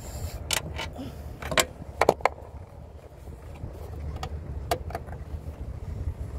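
Scattered light clicks and taps of a screwdriver being handled and set down during the capacitor swap, the loudest a quick double click about two seconds in, over a low rumble of wind on the microphone.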